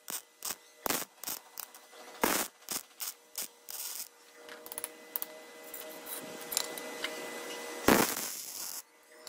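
MIG welder arc on steel tubing: a series of short crackling tack welds, then a longer continuous crackling bead for about four seconds that stops shortly before the end. A steady hum runs underneath.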